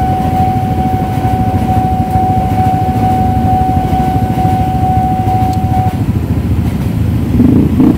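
Level-crossing warning signal sounding as one steady high tone, which stops about six seconds in as the train clears. Under it runs a continuous low rumble from the passing passenger train and the idling motorcycles waiting at the crossing.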